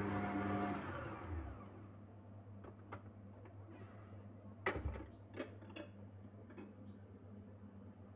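Stand mixer's motor running with its balloon whisk beating an egg-and-sugar mixture, then switched off about a second in and winding down. After it come a few sharp clicks and knocks, the loudest about halfway through.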